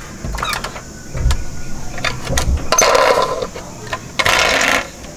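A toy box truck being picked up off a table and handled: low knocks and small clicks, with two short spells of rubbing and rattling, one about halfway through and one near the end.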